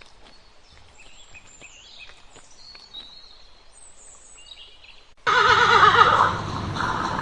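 Faint high chirps and small clicks, then about five seconds in a loud animal call starts abruptly, its pitch wavering and trembling.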